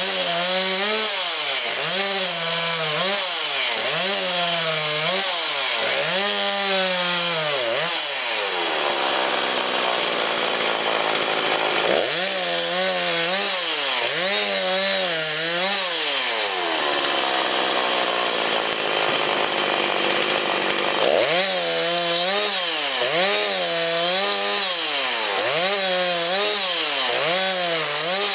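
Two-stroke chainsaw cutting firewood logs at full throttle, its engine pitch dipping and recovering about once a second as the chain bites into the wood and is worked through the cut. Twice the rhythm gives way to a steadier, higher-pitched run for a few seconds before the cutting rhythm returns.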